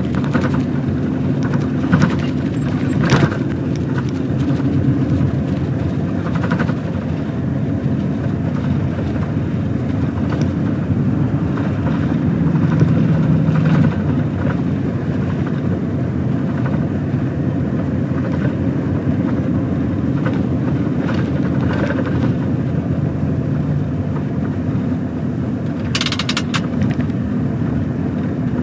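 A heavy truck's diesel engine runs steadily while driving, over road noise and a few light rattles. About 26 seconds in there is a brief hiss.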